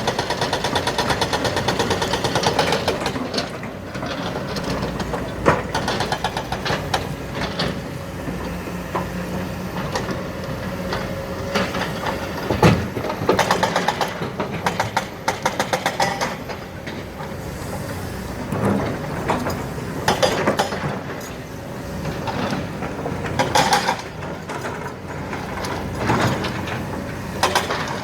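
Heavy diesel engine of an excavator working, with a fast rattle in the first few seconds and repeated knocks and clanks of rock being handled and loaded, the loudest one about halfway through.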